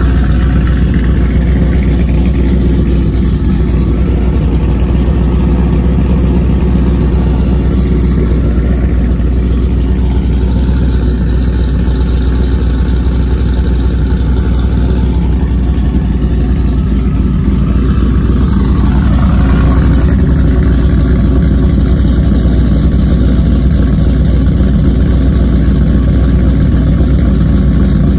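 Cammed Ford F-150 SVT Lightning's supercharged 5.4-litre V8 idling steadily through its side-exit dual exhaust.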